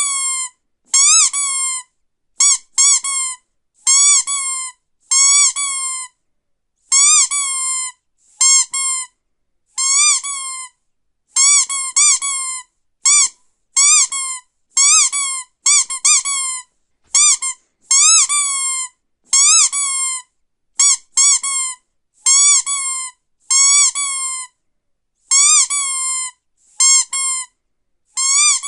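Squeaky dog toy squeezed over and over: short squeaks, each a quick rise and fall in pitch, often in pairs, about one or two a second with silence between.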